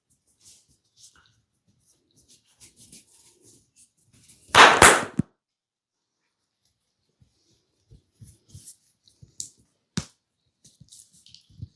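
Hand massage of the head and shoulders: faint rubbing and scratching on skin and hair, broken by one loud double slap about four and a half seconds in and a single sharp click near ten seconds.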